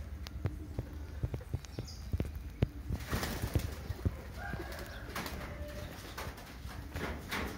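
Chickens flapping their wings in a tree, in noisy bursts about three, five and seven seconds in, after a run of short light clicks.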